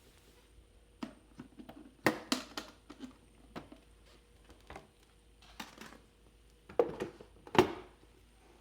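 Irregular clicks and clunks of a Sony TC-102 tape recorder being handled, louder at about two seconds in and again near the end.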